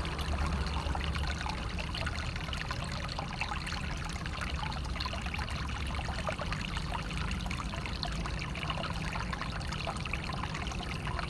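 Water flowing and trickling steadily, with constant small splashes and a low rumble underneath.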